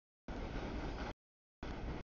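Freight cars rolling past on the rails, a steady rumbling wheel-and-rail noise. The audio cuts abruptly in and out, dropping to dead silence for about half a second between two stretches of train sound.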